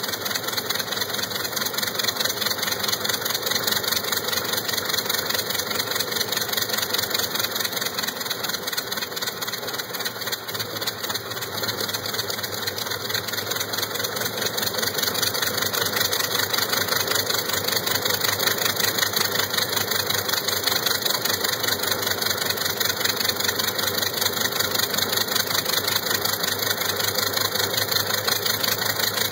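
Douglas DC-4's number 2 radial piston engine running steadily at low power, dipping slightly in loudness about a third of the way through.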